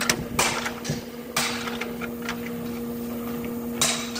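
A handful of sharp metal knocks and clanks as a steel part is set and shifted in a steel jig on a metal workbench, over a steady low machine hum.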